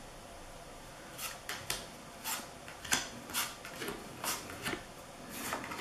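Large linen-finish picture cards being dealt one at a time onto a pile on a felt tablecloth. Each card makes a short flick as it is taken and laid down, about twice a second, starting about a second in.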